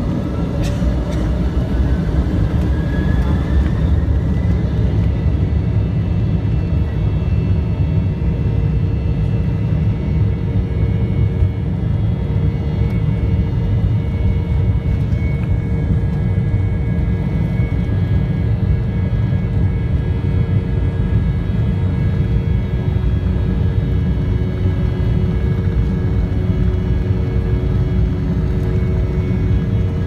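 Embraer E190's GE CF34-10E turbofan engines spooling up to takeoff thrust, heard from inside the cabin: a whine rises in pitch and the sound grows louder over the first few seconds. It then settles into a steady loud engine noise with whining tones over a deep rumble through the takeoff roll.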